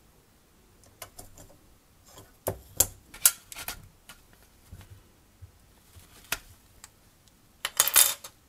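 Small hard parts clicking and tapping against each other as they are handled. The clicks come irregularly, with the loudest a few seconds in and a quick cluster near the end.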